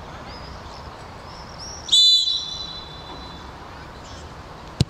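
A referee's whistle gives one short, loud, high-pitched blast about two seconds in, its tone hanging on faintly for a moment, over the low background noise of a football pitch. A single sharp knock sounds near the end.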